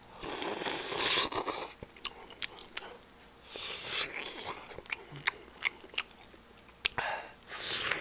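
A person eating close to the microphone: chewing and mouth smacking, with many short sharp clicks and a few longer hissing stretches.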